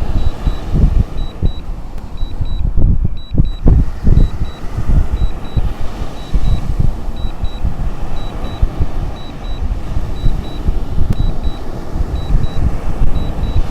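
A drone remote controller beeps steadily, two short high beeps about once a second: the alert it gives while the DJI Mini 3 Pro flies home on low battery. Underneath runs a loud, uneven low rumble of wind buffeting the microphone.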